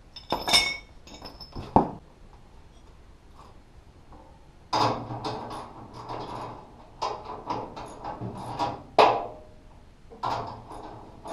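Steel parts of a flail mower's shipping frame being handled: a ringing metal clink about half a second in and a sharp knock just before two seconds. From about the middle there is a run of scraping and rattling, with a loud knock near the end.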